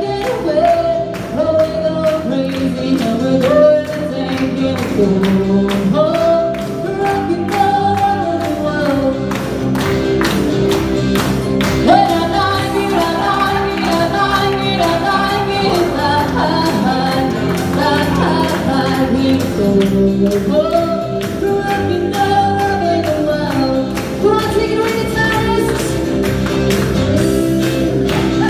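A woman singing live into a microphone over amplified backing music with a steady beat, played through PA speakers.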